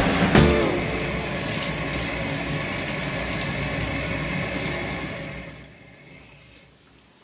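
Water running steadily from a newly installed waterfall tub faucet set, a steady rushing hiss that drops to a much quieter hiss about five and a half seconds in.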